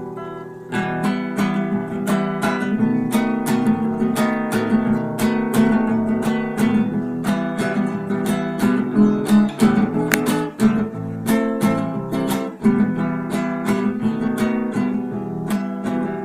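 Acoustic guitar strummed in a steady rhythm, full chords ringing, with no voice.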